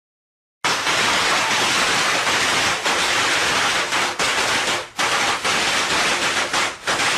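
A string of firecrackers going off in a dense, rapid crackle that starts suddenly just under a second in and carries on with only brief dips.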